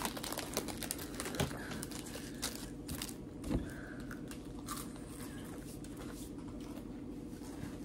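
Scattered crinkling and small crunching clicks from handling and eating a packaged snack, over a faint steady hum.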